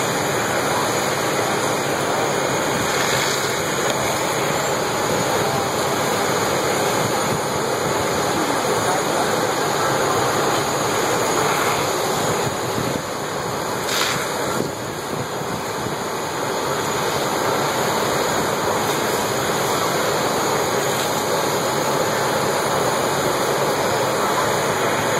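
Steady rushing noise of firefighting at a house fire: the aerial ladder truck running and water streams from the hoses.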